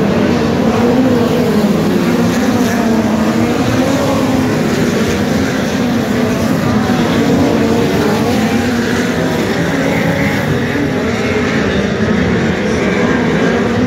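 Several speedway race cars running laps of a dirt oval, their engines loud and continuous, the pitch rising and falling as they power through the bends and down the straights.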